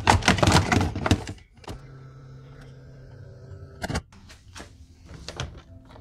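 Plastic seat side trim panel being handled and worked loose: a burst of clattering and rattling for about a second, then a sharp click about two seconds in and another about four seconds in, with lighter clicks and taps after.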